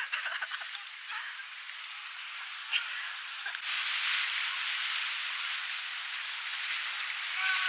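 Rushing white water of a river rapid around an inflatable raft, with a couple of brief knocks, likely paddles against the raft. About three and a half seconds in, the rush turns suddenly louder and fuller as the raft meets rougher water.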